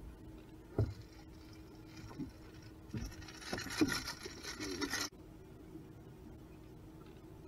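Knocks and scraping on a bass boat's deck as a hooked fish is landed and handled, then a busy stretch of rustling and scraping that cuts off suddenly about five seconds in, over a steady low hum.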